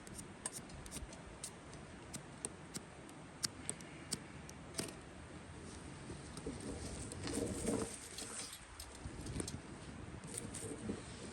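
Faint, low cooing bird calls about midway and again later, over scattered small clicks and taps.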